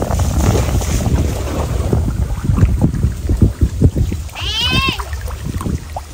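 Wind rumbling on the microphone, with handling knocks throughout. About four and a half seconds in, a dog gives a short high whine that rises and falls.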